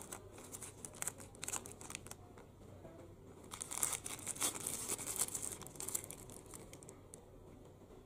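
Thin plastic bag crinkling as it is untied and pulled open by hand, in scattered crackles at first, then a denser stretch of crinkling about halfway through that dies away near the end.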